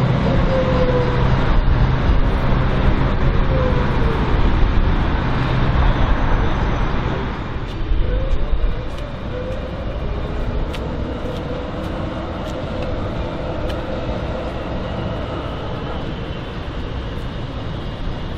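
Amsterdam line 51 light-rail tram pulling away from a stop and running off into the distance: electric traction motors whine in gliding tones over a steady rumble of wheels on rail, fading to a lower level after about eight seconds.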